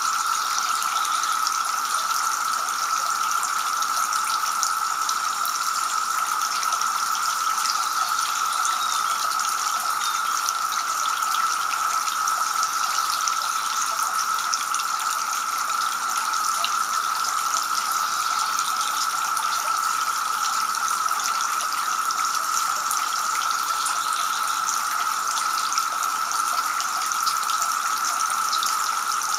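Two-tier garden fountain: water spilling from the upper bowl and splashing steadily into the basin below.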